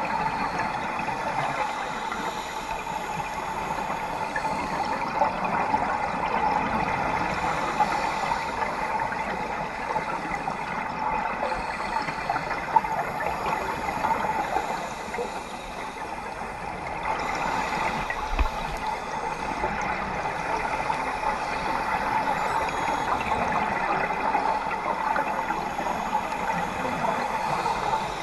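Steady underwater water noise picked up by a camera in its dive housing: a rushing, gurgling wash that swells and fades a little. A sharp tick about halfway through and a low thud a few seconds later.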